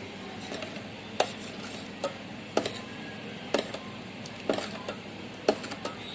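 A spoon stirring milk in a vessel, clinking sharply against its side about six times, roughly once a second.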